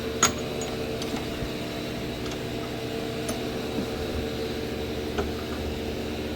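Steady hum of a running machine, with a few light metallic clicks as a bench vise is closed on an idler pulley; the sharpest click comes just after the start.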